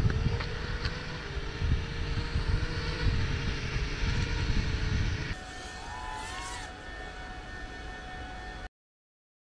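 Small FPV racing quadcopter's electric motors whining, the pitch wavering with throttle over a heavy low rumble. About five seconds in the sound drops quieter, leaving a higher whine with a couple of short rising revs, then cuts off suddenly near the end.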